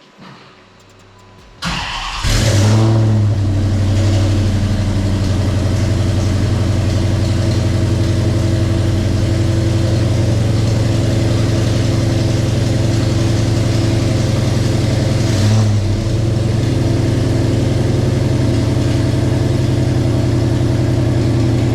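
2014 Dodge Challenger R/T's 5.7-litre HEMI V8, on newly fitted long-tube headers and mid-pipes, starting about two seconds in with a sharp flare, then idling loud and steady, with a brief blip of the throttle about fifteen seconds in. This is its first startup on the new headers, with a pretty large exhaust leak from header bolts that weren't tight.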